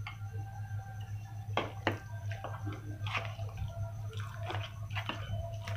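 A metal spoon stirring raw chicken pieces through thick, wet green masala paste in a ceramic bowl. Soft wet squelching comes with scattered sharp clicks of the spoon against the bowl, over a steady low hum.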